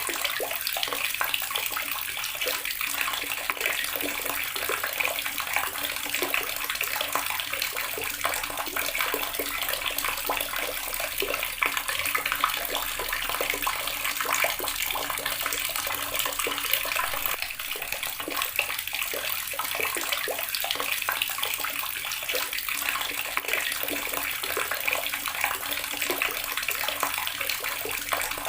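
Water tap running steadily, a continuous splashing stream of water falling into a basin.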